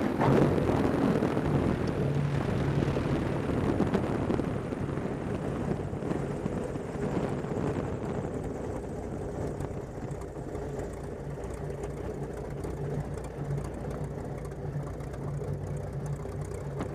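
Maule M7-260C's six-cylinder Lycoming engine running at idle with the propeller turning during the landing rollout, a steady low drone. The rush of air fades over the first half as the plane slows to taxi speed.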